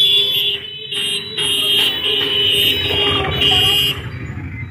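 A vehicle horn sounding in several long, shrill blasts with short breaks, stopping about four seconds in, over street traffic noise.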